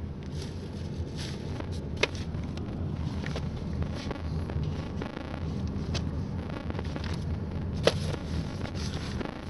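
Car driving, with steady engine and road rumble heard from inside the cabin. Two sharp clicks stand out, about two seconds in and near the end.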